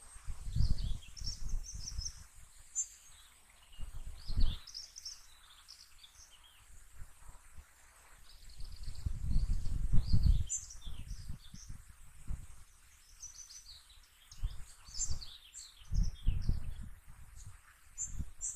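Small birds singing and chirping steadily, with low rumbling buffets against the microphone several times, the longest about two seconds in the middle.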